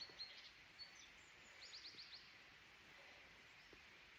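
Quiet forest ambience with faint small-bird chirps, including a quick run of four short falling notes about a second and a half in.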